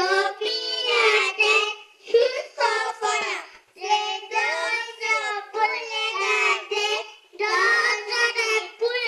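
A young girl singing into a handheld microphone in short phrases with brief breaks between them.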